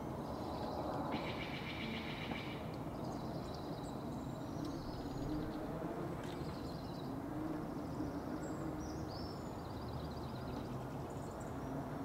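Small songbirds singing short, rapid trills at several pitches, the loudest about a second in, over a steady low background noise.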